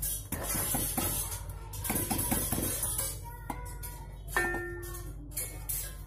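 Metal clicks and clinks as a brass LPG regulator is pressed onto a gas cylinder's valve and locked, over background music.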